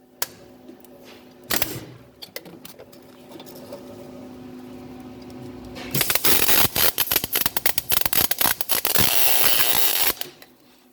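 HTP 200 MIG welder laying weld onto a broken-off stud down in its hole, to build it up for extraction. A couple of short crackling tacks come in the first two seconds, then a steady crackling bead runs for about four seconds from about six seconds in, over a low steady hum.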